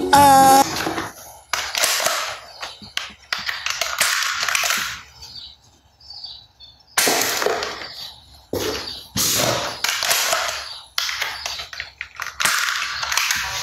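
Toy gun shots: about ten sharp, hissing bangs, some close together, with a gap of over a second around the middle.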